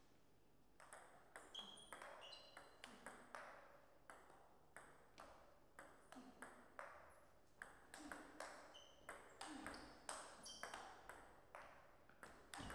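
Table tennis rally: the ball clicks sharply off the paddles and table in a quick, irregular run of about two to three hits a second, some with a short high ping. It starts about a second in.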